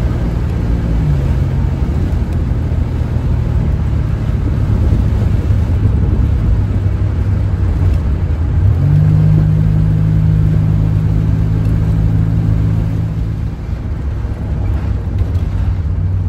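Buick Grand National engine and road noise heard from inside the cabin while driving: a steady low rumble. The engine note steps up about nine seconds in, holds for a few seconds, then eases off.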